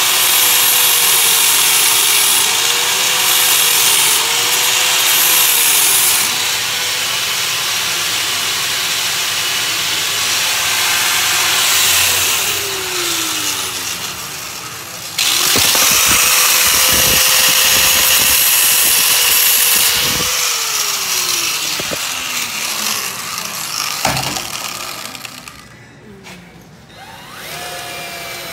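Cordless drill spinning an abrasive scuffing attachment against the car's engine-bay sheet metal, scuffing and stripping old paint before repainting; the motor pitch wavers as it is pressed and eased off. It runs in two long stretches, each slowing to a stop, the second starting suddenly, and it starts up again near the end.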